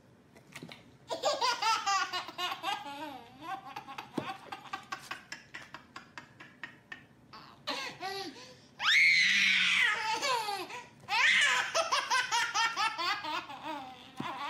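A baby laughing in three long fits of quick, pulsing laughter, the loudest a high squeal a little past the middle.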